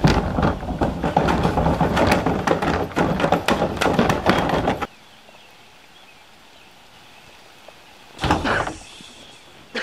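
A plastic wheeled trash can rattling and banging hard, as if something is thrashing inside it, for about five seconds, then it stops suddenly. One short thump follows near the end.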